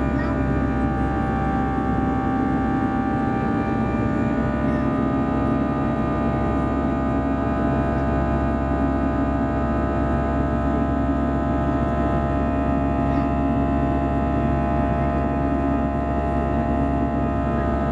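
Airbus A320-214's CFM56-5B turbofan engines running steadily, heard from inside the cabin. A constant drone carries several high whining tones that shift slightly in pitch in the first few seconds and then hold steady.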